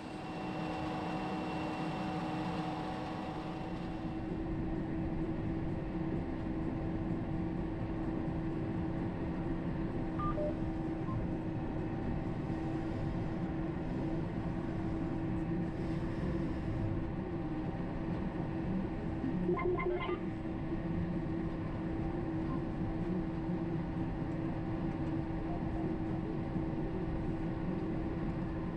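John Deere 6R 215 tractor heard from inside the cab while pulling a no-till drill: a steady drone from the six-cylinder diesel with a constant mechanical whine over it. A brief electronic beep sounds about two-thirds of the way through.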